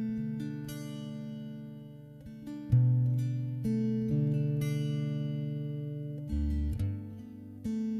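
Slow acoustic guitar music: plucked notes left to ring out, with deep bass notes about three seconds and six seconds in. The music is paced at 60 beats per minute.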